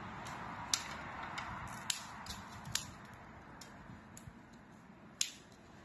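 Dry tree branches snapping as they are broken by hand for firewood: a few sharp, short cracks at uneven intervals, with smaller crackles between.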